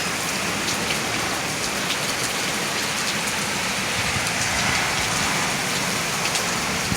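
Heavy thunderstorm rain pouring steadily in gusty wind, with scattered sharp ticks of drops striking nearby surfaces.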